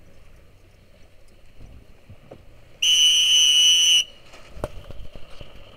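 A signal whistle blown once, a single loud, steady, shrill blast lasting about a second, starting just before the middle. It signals the sailors to start a 'driving only' drill.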